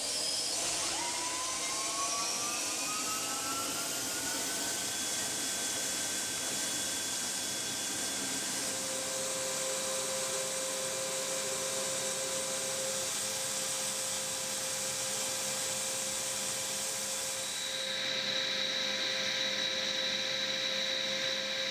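Turbine engine spooling up: a whine that rises in pitch over the first five seconds or so, then runs steady over a loud hissing rush. The tone changes slightly about eighteen seconds in.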